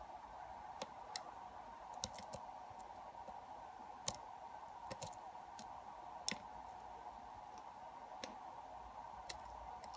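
Lock pick and tension wrench working the pins of a lock held in a vise: faint, irregular small metallic clicks and ticks as the pins are lifted and set, over a steady faint hum.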